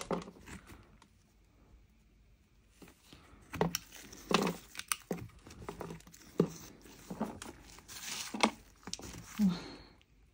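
Blade scraping and flaking the dry crust off a lump of Mocha clay: irregular crunchy scrapes, a dozen or so, starting after a quiet couple of seconds.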